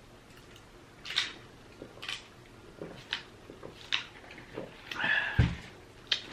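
Wet mouth smacking while chewing food, a short sharp smack about once a second. About five seconds in there is a longer, louder noise that ends in a low thump.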